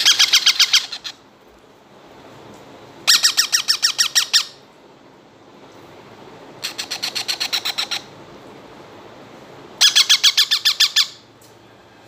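Ringneck parakeet chicks giving food-begging calls while being hand-fed: four bouts of rapid, rhythmic squawks, about ten calls a second, each bout lasting about a second with short pauses between.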